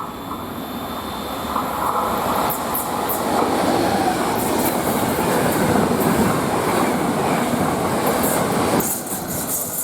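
A train passing close by: the rumble of wheels on rails builds over the first few seconds and stays loud, with sharp clicks from the wheels running over rail joints.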